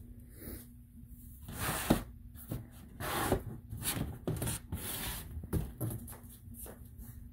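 Hard plastic litter-box parts and cardboard being handled: irregular rubbing, scraping and knocking, with the loudest knocks about two and three seconds in.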